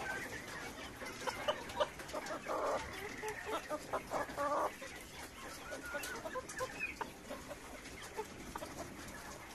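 Caged Cochin chickens clucking, a run of short repeated clucks that is busiest in the first half and then thins out.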